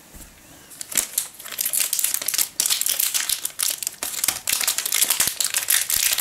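Plastic snack-cake wrapper crinkling and crackling as it is handled and squeezed to push the cake out. The rustling starts about a second in and carries on with many sharp crackles.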